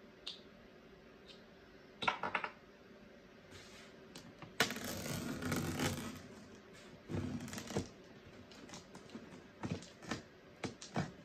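A cardboard box being opened and its packing handled: a few quick clicks and knocks, then about two seconds of scraping and rustling of cardboard, another shorter rustle, and scattered taps.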